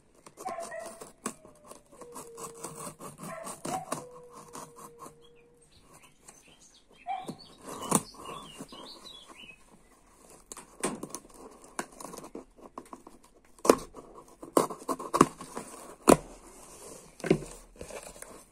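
A knife slitting the paper wrapper and tape on a sealed cardboard box, then the old cardboard flaps being prised open: scraping, tearing and crackling paper and cardboard, with sharp clicks and snaps that grow louder near the end. A faint held tone sounds through the first five seconds.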